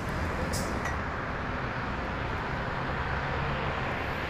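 Steady rumble of road vehicles passing, with a low engine hum.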